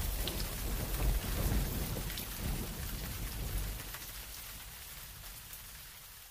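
Rain with a low rumble of thunder, a recorded storm effect at the end of a song, fading out steadily, with scattered faint drop ticks.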